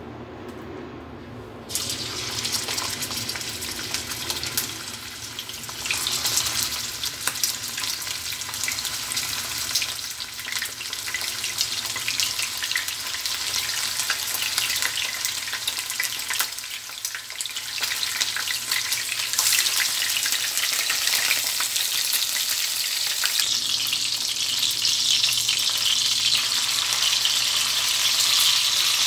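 Chicken lollipop pieces frying in hot oil in a nonstick pan: a dense, crackling sizzle that starts abruptly about two seconds in, then gets louder in steps around six and twenty seconds as more chicken goes into the oil.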